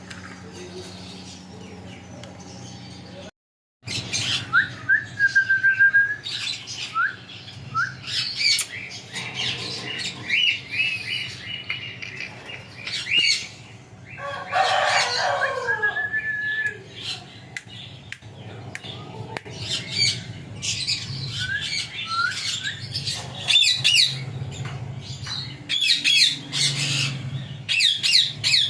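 A pet parrot calling: short rising whistles and chirps, with a harsh, squawking burst of calls about halfway through, among many sharp clicks.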